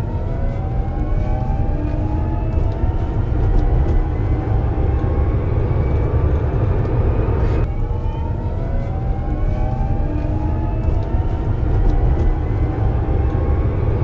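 Pickman low-speed electric truck driving, its motor whine rising slowly in pitch as it speeds up, over a steady low rumble. The whine breaks off suddenly about halfway through, then starts low and rises again.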